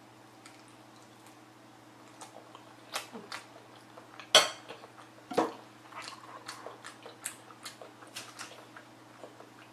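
Close-up eating sounds: a metal spoon clinking and scraping against a ceramic bowl, with soft wet chewing and mouth clicks of rice in black bean sauce. The loudest clink comes a little over four seconds in, another about a second later, then a run of small clicks and smacks.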